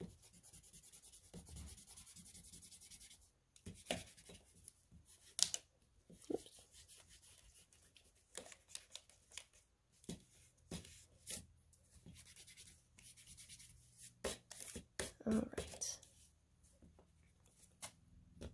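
A block eraser rubbing pencil lines off printer paper in quick back-and-forth strokes. The strokes are fast and even at first, then come in short stop-and-start bursts with a few light clicks.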